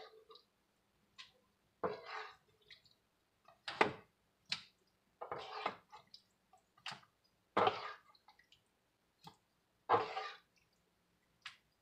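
Wooden spoon adding saucy cooked ground beef to a disposable foil pan: a series of short wet scoops and plops, about one every second or two, with a few sharp taps of the spoon.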